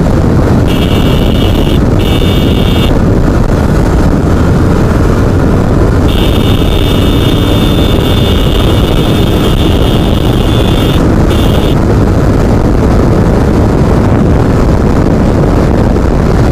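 Steady, loud motorcycle riding noise: engine rumble and wind on the microphone. A high, thin buzzing tone cuts in twice briefly about a second in, then again for about five seconds from six seconds in.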